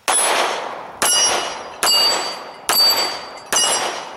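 Colt Lightweight Commander .45 ACP pistol fired five times at a slow, steady pace, a little under a second apart. Each shot is followed by the ringing clang of a steel plate target being hit.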